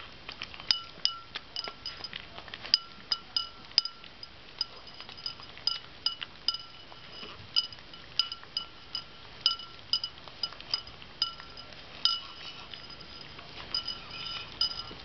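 Small dog eating from a ceramic bowl: irregular clinks against the bowl, a few a second, each with a short ring.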